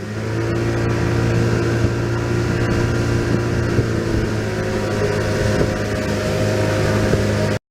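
An engine running steadily at an even pitch, then cutting off suddenly near the end.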